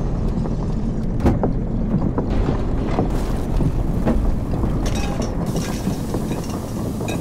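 Designed film rumble of a debris storm: a deep steady rumble with scattered knocks and clanks, and a rushing wind-like hiss coming in about five seconds in.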